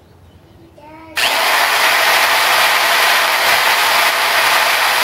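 Corded electric drill switched on about a second in and running steadily, a constant whine over loud noise as it drills a hole through a pistol's trigger assembly.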